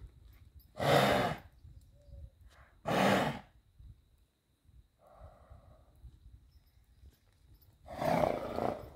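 A horse snorting loudly three times, each a forceful rush of air through the nostrils lasting about half a second: once about a second in, again about three seconds in, and once more near the end. These are the alarm snorts of an alert, excited horse, the whistling 'kettle' snort.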